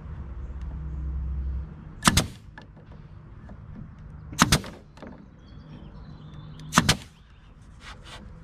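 Three sharp knocks on wood, about two and a half seconds apart, each a quick double strike. A low rumble underneath stops about a second and a half in.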